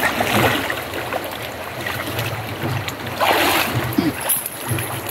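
Rushing river water splashing around a wading person's legs, with a louder burst of splashing a little over three seconds in.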